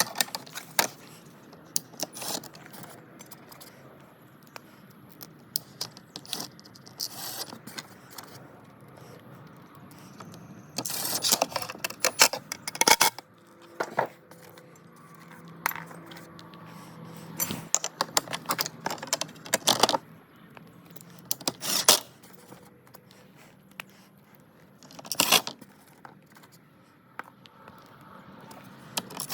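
Metal fan parts and small hardware being handled during a ceiling fan installation: irregular clinks, rattles and scrapes, with a few louder clattering clusters.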